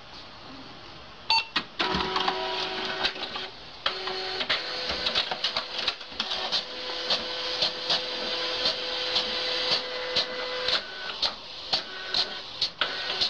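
Desktop fax-printer running a print job, starting about a second in: a whirring motor with the paper feed and print carriage working, and regular clicks about twice a second.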